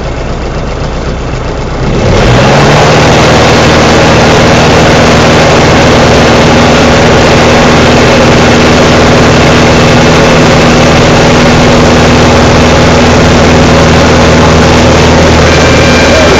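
Single-engine light aircraft's piston engine and propeller opened up to full takeoff power about two seconds in: the pitch climbs quickly and the level jumps, then it runs steady and loud through the takeoff roll, heard from inside the cockpit.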